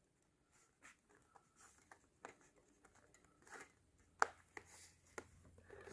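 Faint handling sounds of a crimp-wired wax foundation sheet being worked into a wooden hive frame: a few soft scrapes and clicks, the sharpest about four seconds in.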